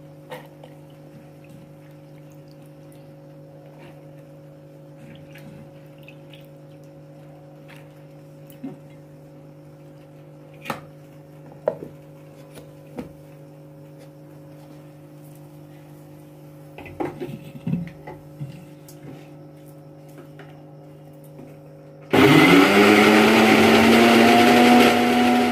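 A few light knocks and clicks as the mixer-grinder jar is lidded and set on its base, over a steady low hum. About 22 s in the electric mixer grinder switches on, rising in pitch as the motor spins up, and runs loudly grinding soaked chana dal into a paste, starting to wind down at the very end.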